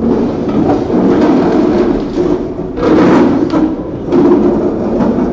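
Loud rubbing and knocking handling noise on the camera's microphone as it is picked up and carried about, with a stronger surge about three seconds in.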